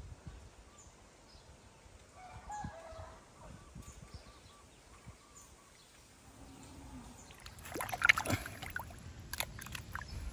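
Chickens clucking, with a short call about two and a half seconds in. From about seven and a half seconds there is a run of sharp knocks and clatter, the loudest moment coming around eight seconds.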